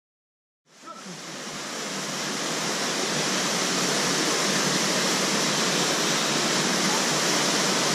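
Steady rush of a small waterfall pouring into a mountain-torrent pool. It fades in about a second in and builds to full level over the next couple of seconds.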